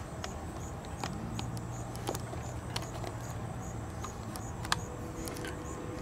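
Steady, quiet background noise with a few faint scattered clicks and a faint low hum partway through.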